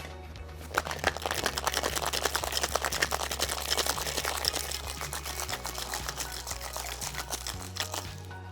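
Ice rattling in a cocktail shaker during a hard shake, a rapid continuous clatter starting about a second in and easing toward the end. The round craft ice spheres are being broken down to chill and dilute an egg-white sour.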